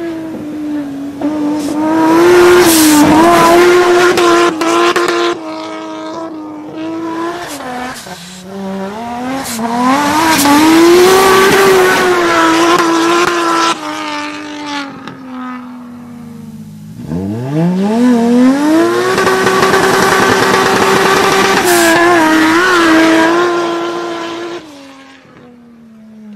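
Nissan Patrol's swapped-in RB25DET turbocharged 2.5-litre straight-six revving hard, held near high revs in three long stretches with drops between them and a quick climb in revs partway through. A wide hiss of tyre noise rides over the engine during the loud stretches.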